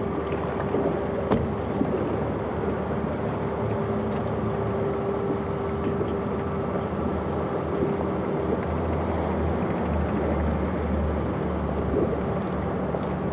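Steady mechanical drone with a held mid-pitched hum and a deeper rumble that grows stronger in the second half, over wind noise on the microphone, with a few faint clicks.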